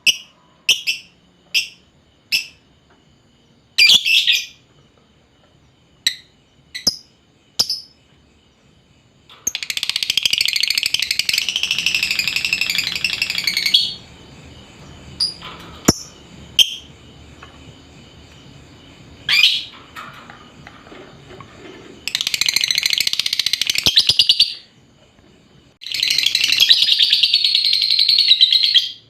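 Lovebird calling: a series of sharp single chirps, then three long bursts of rapid, shrill chattering trill lasting several seconds each.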